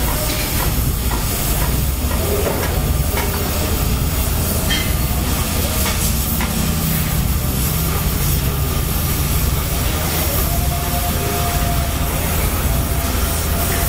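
Oxy-fuel cutting torch flame running with a steady roaring hiss, a few small pops and crackles over it as the steel is cut.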